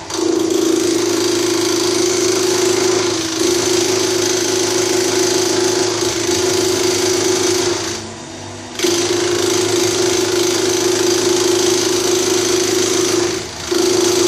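Pandan-leaf slicing machine running loud and steady as leaves are fed through its cutter, a steady hum with a whirring hiss above it. The sound drops away for under a second about eight seconds in, then picks up again.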